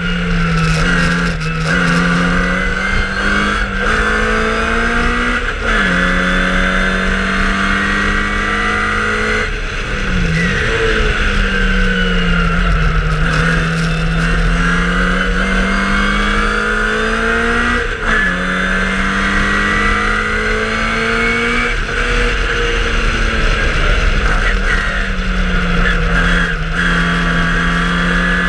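1963 MG Midget Mk1's BMC A-series four-cylinder engine, heard from on board, running hard at racing speed. Its note climbs and falls sharply about eight times with gear changes and throttle lifts.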